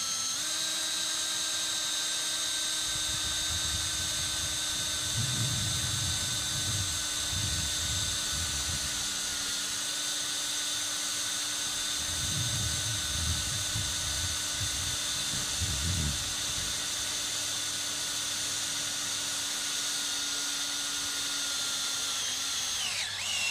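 Cordless drill running steadily at speed, driving a #14 self-drilling tek screw through overlapping galvanized steel tubing. Near the end its pitch dips sharply as the screw seats flush.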